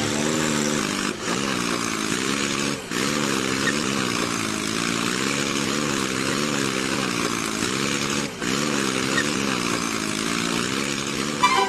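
A motor running steadily, its hum wavering up and down in pitch under a loud hiss, dropping out briefly three times.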